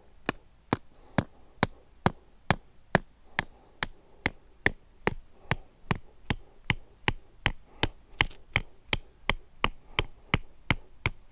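Hammer blows driving a stake into hard ground: a steady run of about two dozen short, sharp knocks, about two and a half a second, quickening slightly near the end.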